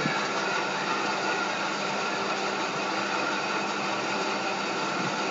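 Steady background hum and hiss, like a small motor or fan running, unchanging throughout, with one faint click at the start.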